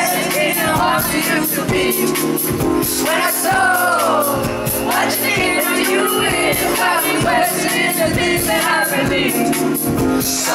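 A woman singing lead into a microphone over a live band of keyboards, guitar and drums, heard from the crowd through a concert PA.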